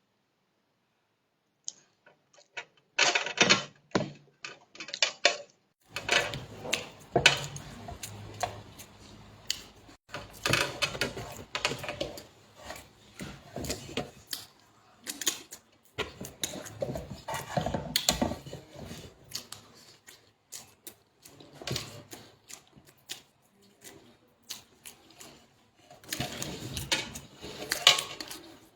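Irregular clicking and clatter, like a spoon and dishes handled while eating, starting about two seconds in after a brief silence.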